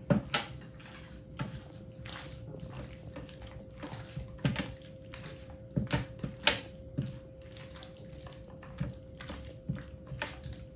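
Hands rubbing mustard oil into marinated lamb chops: irregular wet squishing with scattered light clicks and knocks, over a steady faint hum.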